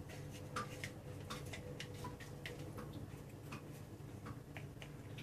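Faint, irregular light clicks, about two or three a second, over a low steady hum.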